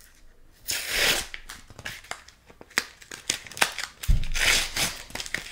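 Yu-Gi-Oh booster pack wrapper being torn open and crinkled by hand, in ragged bursts of tearing and crackling with many small clicks, one about a second in and a longer one from about four seconds in. That second burst starts with a low bump.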